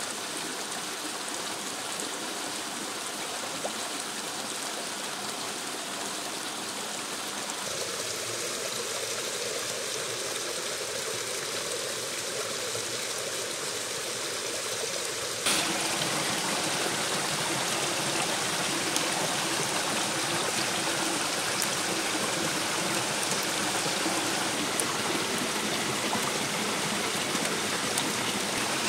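Small woodland stream and waterfall running steadily over rocks, a continuous rush of water that steps up louder about halfway through.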